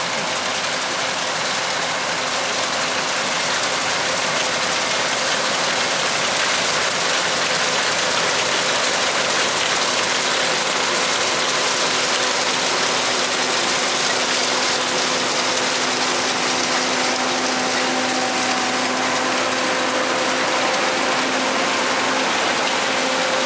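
John Deere 9400 combine running steadily during soybean harvest, an even engine and machinery drone with a steady hum, growing a little louder over the first few seconds and then holding level.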